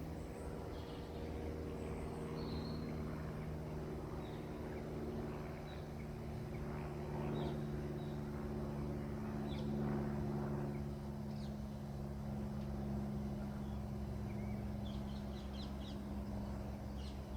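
Outdoor ambience: a steady low mechanical hum, with faint short bird chirps now and then, more of them near the end.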